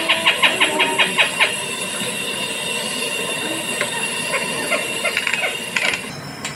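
Recorded call of a Philippine trogon played back at a museum exhibit: a fast run of sharp repeated notes, about six a second, that stops about one and a half seconds in, followed by fainter, scattered single notes.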